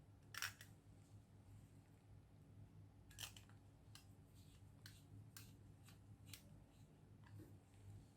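Faint, scattered clicks and taps of small hard plastic parts being handled, about eight in all, the loudest about half a second in, over a low steady hum.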